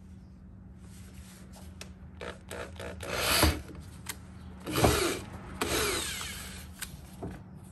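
Handheld power drill with a twist bit boring out holes in a plastic bumper mounting piece, in three short runs of the bit grinding through the plastic, the last about a second long.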